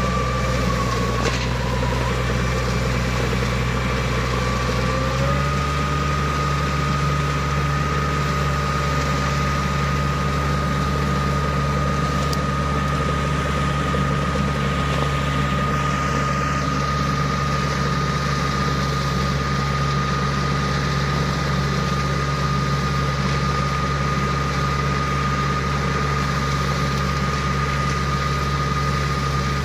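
Engine of a homemade flail mower built from a tracked snowblower, running steadily with a high whine over it. The whine dips briefly about a second in, and the engine note shifts to a new steady speed about five seconds in.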